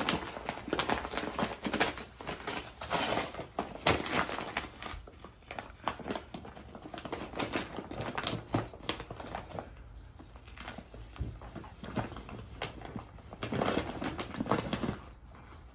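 Labrador puppy rummaging in and tearing at a paper Christmas gift bag and wrapping paper: irregular bursts of crinkling and rustling paper, loudest a few seconds in and again near the end.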